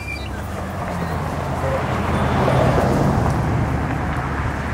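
A car driving past with a steady engine note and tyre and exhaust noise, getting louder toward the middle and then easing off a little.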